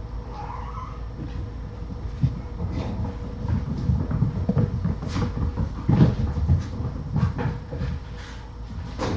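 Irregular soft thumps, knocks and rustling, busiest in the middle, with a short high squeak about half a second in and a faint steady hum underneath.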